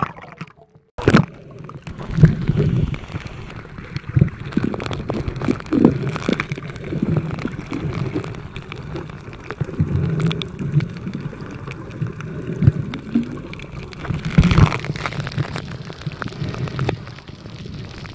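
Sound heard underwater by a submerged camera while snorkeling: a low muffled rumble with frequent clicks and crackles. There is a short dropout just after the start, and a louder thump about fourteen and a half seconds in.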